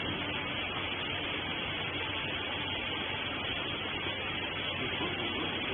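Steady machinery running noise with a faint low hum, from a wiper bagging baler's motor running.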